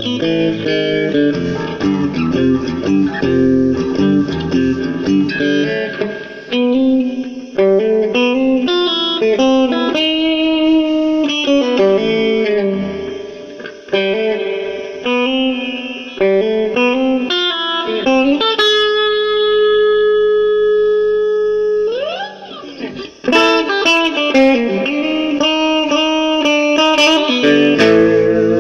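Electric guitar played solo, a run of single notes and chords. About two-thirds of the way through, one note is held for about three seconds, followed by a slide up in pitch before the notes pick up again.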